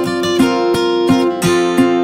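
Background music: an acoustic guitar strummed in a steady rhythm, about three strums a second.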